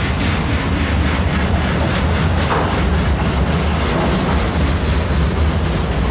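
Mixed freight train of autoracks, boxcars and tank cars rolling past: a steady, loud rumble of the cars with a running clatter of wheels over the rail joints.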